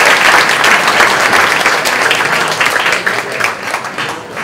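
Audience applauding, many hands clapping together, dying away over the last second or so.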